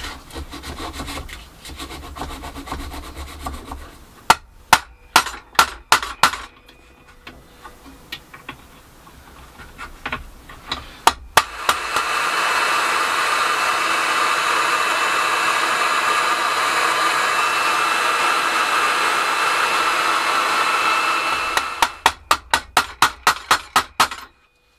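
Rubbing as the gearbox shaft is cleaned up, with a few sharp taps, then a hot air gun blowing steadily for about nine seconds to warm the cog, then a quick run of about a dozen hammer taps driving the warmed cog onto the shaft.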